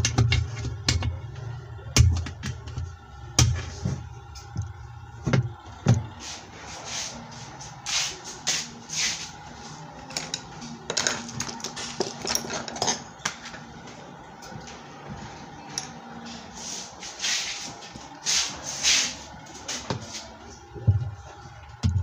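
Hands and metal tools clattering and scraping against a washing machine's plastic pulsator and its centre cap: irregular clicks and knocks, dull low thumps in the first few seconds, and longer scraping passes around the middle and near the end.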